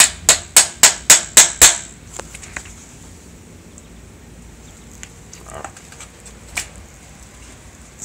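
A 4-inch steel nail rapped hard against a hard surface about seven times in quick succession, roughly four taps a second, to prove it is solid metal. A few faint knocks and one single tap follow later.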